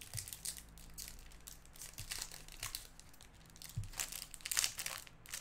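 Foil wrapper of a baseball trading-card pack being torn open and crinkled, in irregular crackles, loudest about four to five seconds in.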